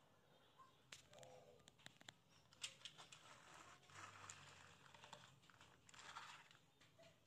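Near silence broken by faint scattered clicks and rustles as a plastic toy dump truck is handled and pushed along a wooden plank.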